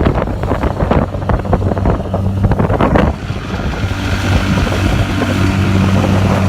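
Boat engine running steadily with a low hum. Rough buffeting on the microphone over the first three seconds.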